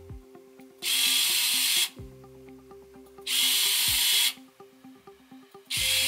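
A small robot rover's drive servos whirring as they spin its 3D-printed wheels in three short bursts of about a second each, with pauses between: the rover is being run for the first time.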